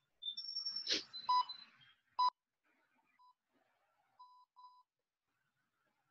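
Short electronic beeps of a fixed pitch, each under half a second, with two sharp clicks, about one and two seconds in, and a few fainter beeps near the middle.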